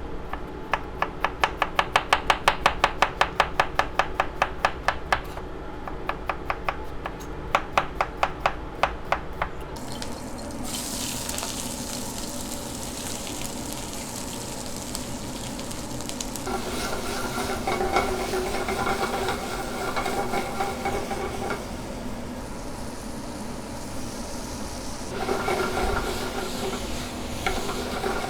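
Kitchen cooking sounds: quick, even tapping strokes, about four a second, for the first ten seconds, then a steady sizzle of food frying in a pan.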